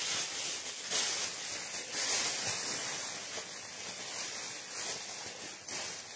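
Paper tissue rustling as it is wiped over a face and then crumpled and handled, a steady hiss with a few louder swells.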